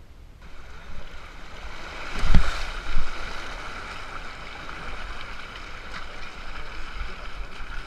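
Off-road vehicle driving along a muddy rutted track, heard through a camera mounted on its body: a steady rushing noise of wind and tyres. Two heavy low thumps come about two and a half and three seconds in.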